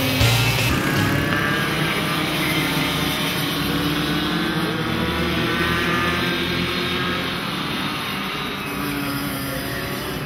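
Several racing go-kart engines running hard around a circuit, a high whine whose pitch keeps rising and falling as the karts accelerate and back off.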